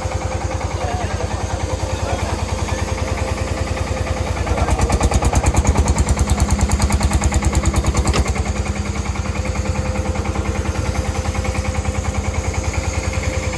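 An engine idling steadily with a fast, even throb and a constant hum.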